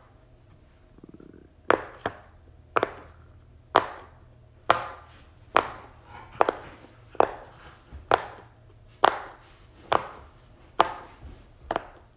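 A fidget toy being snapped again and again, giving sharp, loud pops about once a second, some thirteen in all.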